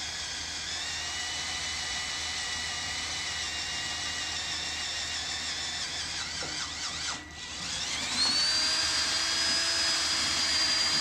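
Cordless drill boring a 1/2-inch hole through a steel trailer flange, its motor whining steadily under load. About seven seconds in the whine cuts out briefly, where the bit snags just before breaking through. It then spins back up to a higher, steady whine.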